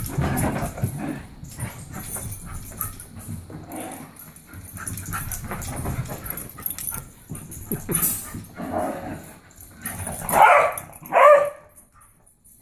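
Two beagles playing rough, with scuffling and dog play noises throughout, then two loud barks about a second apart near the end.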